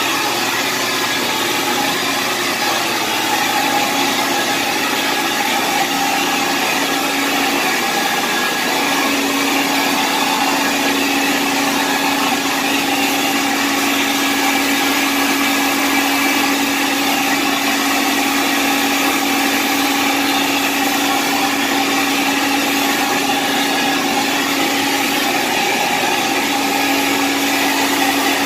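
Carpet-cleaning machine's motor running steadily, with a slight shift in its hum about 8 seconds in and again near the end.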